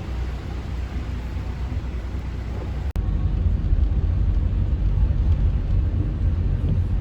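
Steady low rumble of a vehicle on the move, with an abrupt break about three seconds in, after which it runs on slightly louder.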